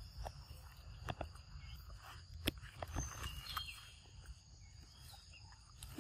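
Outdoor ambience: scattered light clicks and crackles from dry leaf litter as macaque monkeys move about and handle fruit, the sharpest click about two and a half seconds in, over a low rumble. A few faint high chirps sound around the middle.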